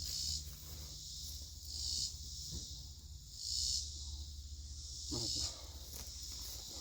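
Insects calling in a repeating high buzz that swells about every second and a half, over a low steady rumble.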